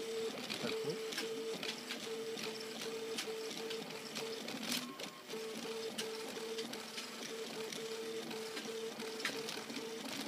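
RepRap Mendel 3D printer's stepper motors whining in short, evenly repeated pulses, about three a second, as the print head runs back and forth laying down PLA. Scattered sharp clicks and taps; the pulsing breaks off briefly about halfway through, with one louder click.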